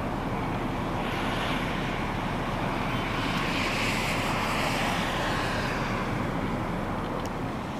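Steady vehicle noise at a truck stop, with a constant low engine rumble; a vehicle swells past from about halfway through and fades near the end.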